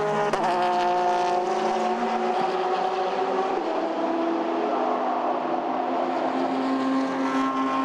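Race car engines running at a steady pitch, with small shifts in pitch about three and a half seconds in and again near the end.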